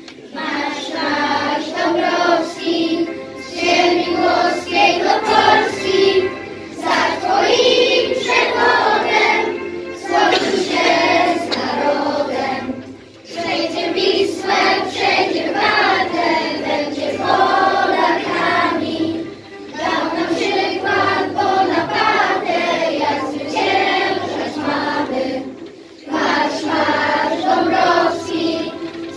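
A group of young children singing together as a choir, with brief pauses between lines.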